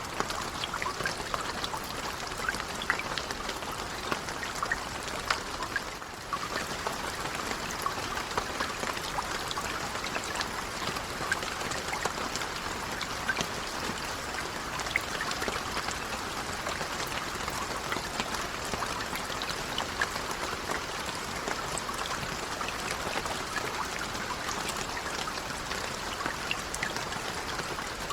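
Steady rain falling, with many separate drops ticking sharply through the even hiss. The level dips briefly about six seconds in.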